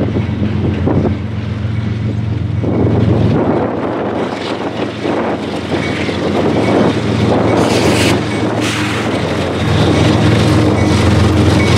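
A diesel-hauled freight train passes close by. The locomotive's engine drones at a steady low pitch. From about three seconds in, wheel rumble joins it, with repeated clacks over the rail joints, and the engine sound grows stronger near the end.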